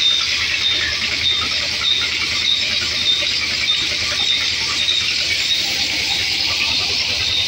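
Large band saw running and sawing through a log: a steady high hiss and whine of the blade in the wood, over a low hum from the machine, with a short high chirp repeating about every 0.6 seconds.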